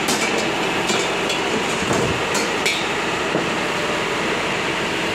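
Metal ladle striking and scraping a steel karahi as the mutton is stirred, with about five sharp clanks in the first three seconds, over a steady hiss from the gas burner and the cooking.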